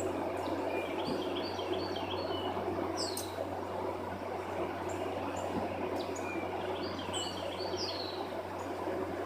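A songbird singing the same short phrase of chirps twice, about six seconds apart, each ending in a falling note, over a steady low hum and outdoor background noise.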